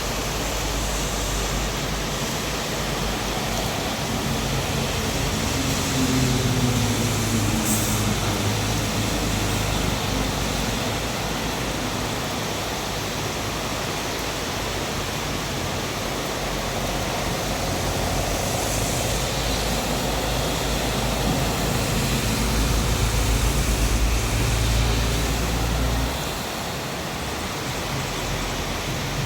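Heavy rain falling in a steady hiss. A low rumble swells under it twice, about six seconds in and again towards the end, then drops away.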